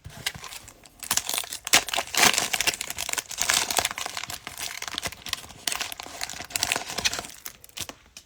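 Cellophane wrapper of a Mosaic football cello pack crinkling and tearing as the pack is opened by hand, in a dense run of sharp crackles that dies away near the end.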